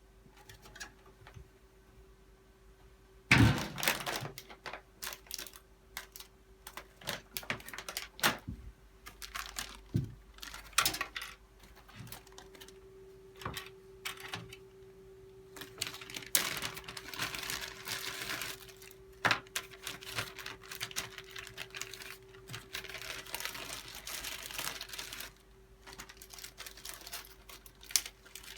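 Clicks, knocks and light clatter of computer parts being handled and fitted in a PC case, with one loud knock about three seconds in and two stretches of rustling or scraping, over a faint steady hum.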